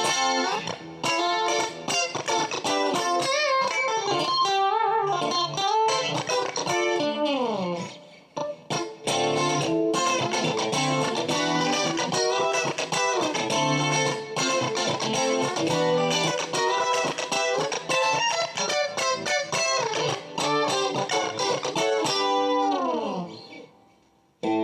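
Westone GT electric guitar played with a clean tone: picked single-note lines and chords with bent, wavering notes, and long falling pitch slides about a third of the way in and near the end, where it fades out.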